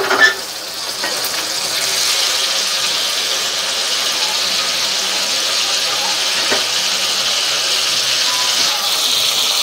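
Small salted fish frying in shallow oil in a wok: a steady sizzle that builds in the first second or two and then holds, with a light tap of a wooden spatula partway through.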